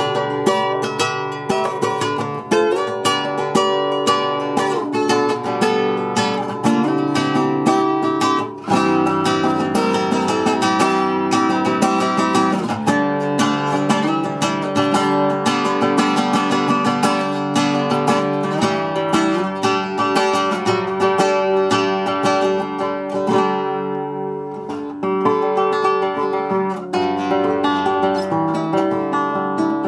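Newly built seven-string acoustic guitar (Russian seven-string) played solo, a continuous run of plucked notes and chords, heard as a sound test of the new instrument.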